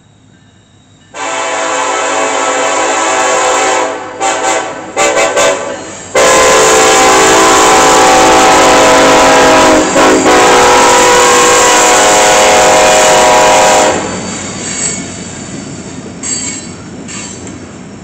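Freight locomotive's Nathan K5LLA five-chime air horn sounding very loud at close range: a long blast starting about a second in, a few short blasts, then a long blast of about eight seconds. After it stops, the train rolls past with a rumble and brief wheel squeals.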